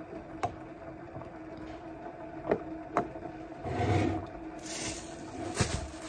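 A few light knocks and handling sounds, then a thin plastic bag crinkling and rustling from about halfway through as bread is pulled out of it, over a steady low hum.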